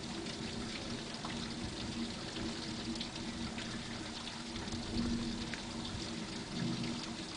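Steady rain falling, an even hiss with scattered drips and splashes, over a faint steady low hum.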